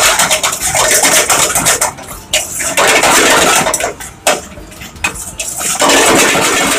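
Steel ladle scraping and clanking against a black frying pan as onion-chilli masala is stirred and fried in hot coconut oil over a gas flame, with a steady sizzling hiss. The stirring comes in loud stretches, easing off for a moment about four seconds in.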